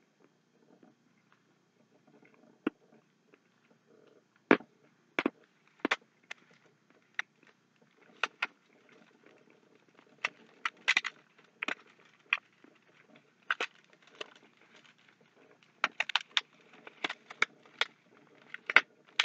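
Someone chewing a chocolate candy bar close to the microphone: irregular sharp mouth clicks and crackles, sparse at first and coming thick and fast from about halfway through.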